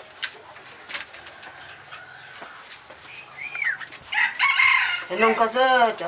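Birds calling: a short arched note about three seconds in, then a loud, drawn-out call with many overtones starting about four seconds in and running on.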